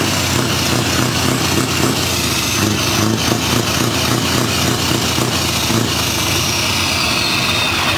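Truck's diesel engine idling steadily, heard close to its side exhaust outlet, with a faint high whistle falling in pitch near the end.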